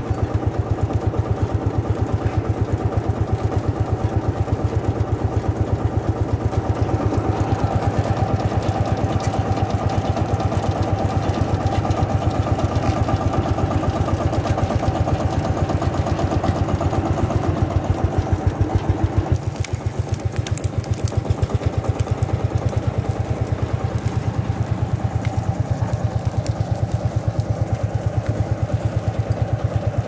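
Single-cylinder two-stroke hot-bulb engine of a 1954 Lanz Bulldog 3606 tractor running with its steady, evenly spaced beat while it drives a cable winch. The extra rattle of the working winch drops away about two-thirds of the way through, leaving the engine beat on its own.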